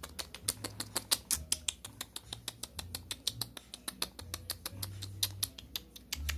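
A rapid run of sharp, light clicks, about six or seven a second, with a low rumble underneath that comes and goes.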